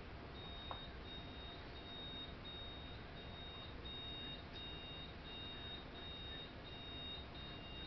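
Arduino robot alarm clock's small speaker sounding its alarm: a repeating run of short, high-pitched beeps, about one and a half a second, with a second, lower beep joining in a few seconds in. The beeping is heard faintly, played back from the demo video on a TV in the room.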